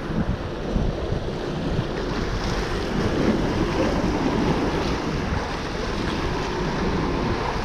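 Wind buffeting the microphone over the wash of surf, a steady rushing noise with no clear separate events.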